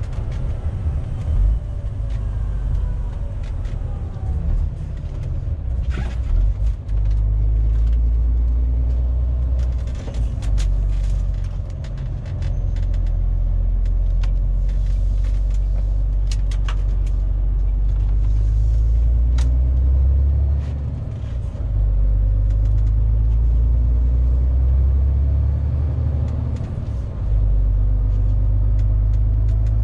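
MAN TGX 470 truck's straight-six diesel engine and road rumble heard from inside the cab while driving, a deep steady drone whose pitch slowly rises and falls with speed, dipping briefly a few times. Occasional sharp clicks and knocks sound over it.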